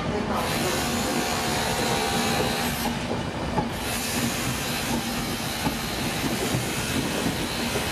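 Frecciabianca intercity passenger coaches rolling past at the platform: a steady rumble of wheels on the rails with a low hum.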